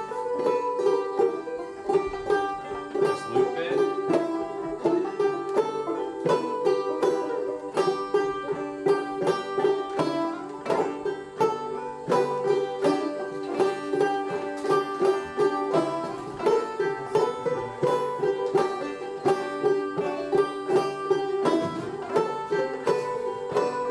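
Several open-back banjos played clawhammer style together on an old-time tune, with a steady, driving picking rhythm.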